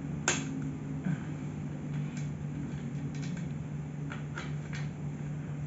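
Plastic office-chair caster being handled and pushed into the socket of a chrome chair-base leg: one sharp click near the start, then several lighter clicks and taps, over a steady low hum.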